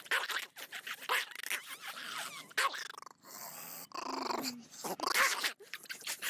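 Small long-haired dog growling and grumbling in irregular bursts while being hugged and kissed, a sign of its annoyance at the handling.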